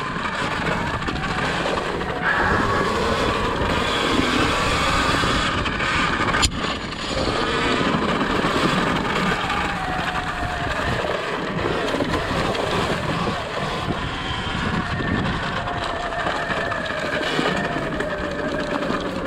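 Sur-Ron Ultra Bee electric dirt bike ridden over a leaf-strewn woods trail: tyre and trail noise with wind on the microphone. A faint motor whine slowly drops in pitch in the second half, and there is one sharp knock about six seconds in.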